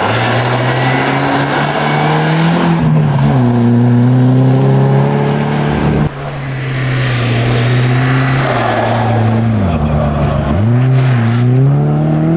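Saab 99 EMS rally car's four-cylinder engine running hard at high revs, its pitch dipping and climbing again as the driver shifts gear or lifts off the throttle. The sound breaks off sharply about six seconds in and the engine comes back straight away, dropping and rising twice near the end.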